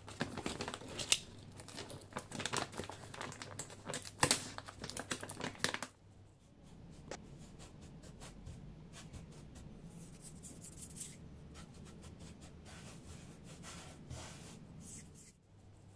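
A plastic cereal bag crinkling and rustling with sharp crackles for about six seconds, then a softer, steady fine rustle of dry oat bran grains pouring and sliding onto a wooden table.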